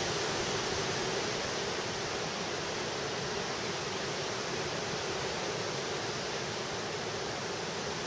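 Strong windstorm wind rushing steadily through the trees, a constant noisy roar with no gusts standing out.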